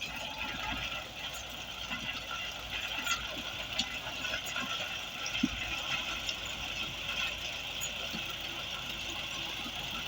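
Engine of road-building machinery running steadily, with scattered clicks and a sharp knock about five seconds in.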